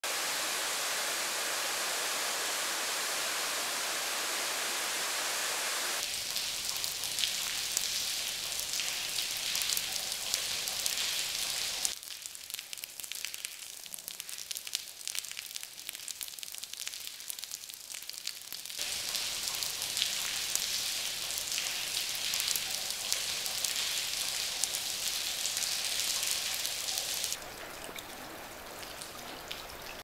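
A run of rain sound effects, rain hitting grass and concrete, switching abruptly between different kinds of rain. It opens with a steady even hiss and changes about six seconds in to a brighter, crackling patter. The rain is quieter and sparser from about twelve to nineteen seconds, crackles loudly again after that, and turns quieter again near the end.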